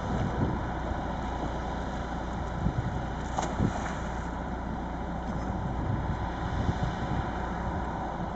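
Small wooden fishing boat's inboard engine idling steadily as the boat comes off the slipway, with a brief hiss about three and a half seconds in.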